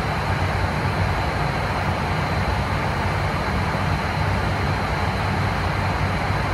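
Steady cockpit noise of an ATR 72-600 on approach: the deep drone of its twin Pratt & Whitney PW127 turboprops and propellers, mixed with the hiss of airflow, with a faint high steady whine above it.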